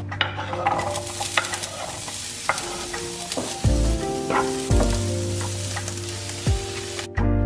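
Diced red onion sizzling as it hits hot oil in a frying pan, stirred with a wooden spatula that ticks against the pan. The sizzle starts about a second in and cuts off abruptly near the end, over background music with a steady beat.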